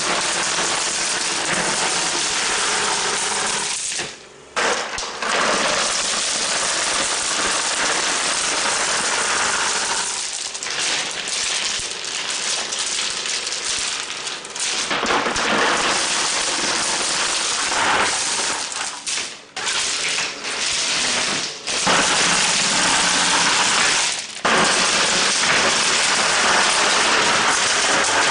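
Washed river-rock pebbles pouring from a plastic bucket and being spread by hand, a continuous dense clattering and rattling of stone on stone. It breaks off abruptly several times.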